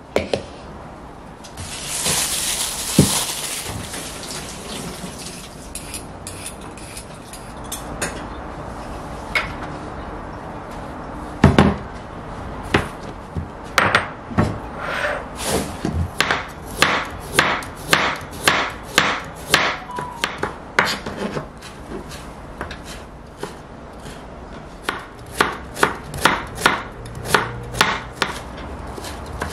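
Kitchen knife chopping carrot and onion on a cutting board: a run of sharp knocks, about two a second, quickening to about three a second near the end. A few scattered knocks and a brief hiss come before the run.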